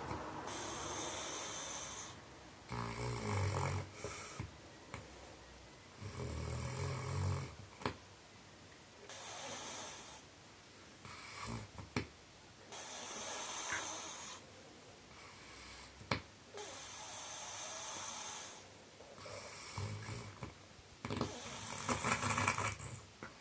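A man snoring in his sleep: low rattling snores alternating with breathy, hissing breaths, in a cycle every few seconds, with a few short clicks between breaths.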